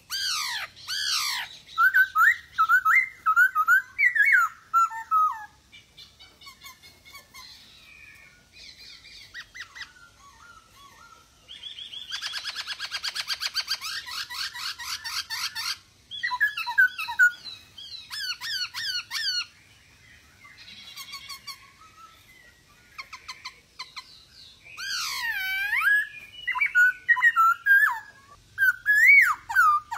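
Black-throated laughingthrush (poksay Hongkong) singing loud, varied whistled phrases that slide up and down in pitch. A harsh, rattling chatter takes over for a few seconds in the middle.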